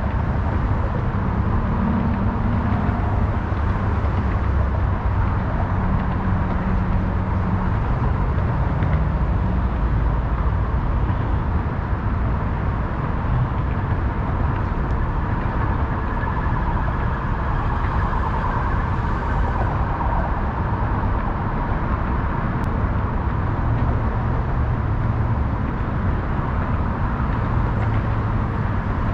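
Steady city road traffic, a continuous wash of passing cars and trucks that holds at the same level throughout.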